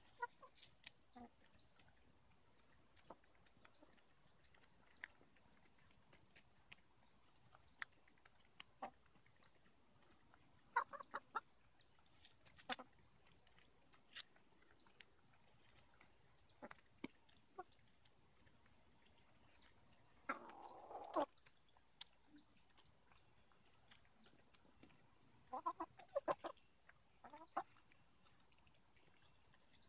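Easter Egger hens pecking at black oil sunflower seeds: scattered quick sharp taps of beaks on seed and ground. Now and then there are soft clucks, with one longer call past the middle and a short run of clucks near the end.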